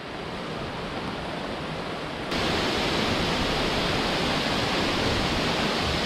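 Waterfall: a steady rush of falling water, jumping suddenly louder about two seconds in.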